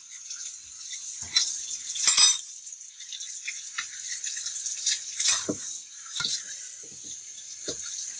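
Batter-coated chicken pieces being handled in a steel bowl and on a plate: short wet handling noises and light knocks, the loudest about two seconds in, over a steady high hiss.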